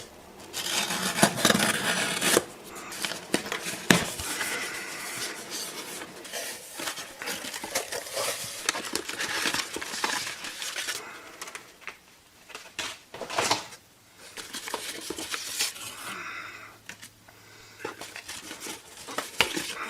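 A cardboard shipping box being opened and its contents unpacked by hand: rustling and scraping of packaging with scattered clicks and knocks, the sharpest about 4 s and 13.5 s in.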